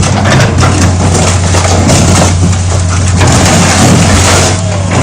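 A 20-ton excavator's diesel engine runs steadily under load while the machine crushes a Nissan Laurel, the car's body crunching and breaking in continuous irregular bursts.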